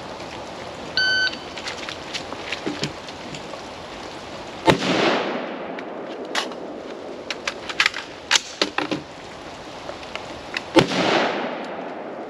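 Shot timer beep about a second in, then a rifle shot from an AR-15 about three and a half seconds later. A run of clicks and clacks from the mid-drill magazine reload follows, then a second shot near the end, over steady rain hiss.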